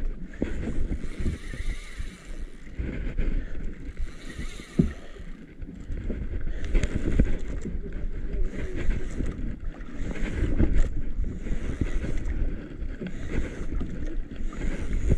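Wind buffeting the microphone and seawater washing against a small outrigger boat's hull, in hissing swells about once a second over a steady low rumble.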